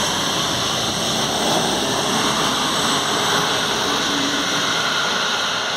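Passenger train passing close by at a level crossing: a steady, loud rush of wheel and rail noise as the carriages roll past.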